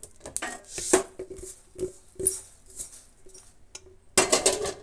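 Kitchen utensils clicking and scraping against a steel plate and pan as dry-roasted cumin seeds are tipped out onto roasted coriander seeds, with a denser run of scraping near the end.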